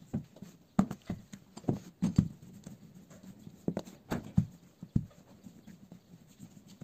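Wooden rolling pin rolling and knocking on a work surface as pizza dough is rolled out: a run of irregular sharp knocks, several close together at times.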